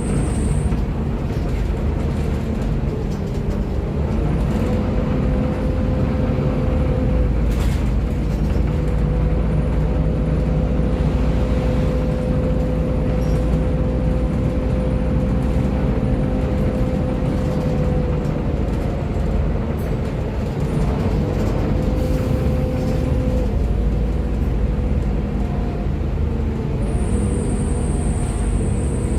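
Interior of a Volvo B7TL double-decker bus under way: the diesel engine runs steadily along with a drivetrain whine. The whine holds for long stretches, drops out for a few seconds past the middle, and rises in pitch near the end as the bus speeds up.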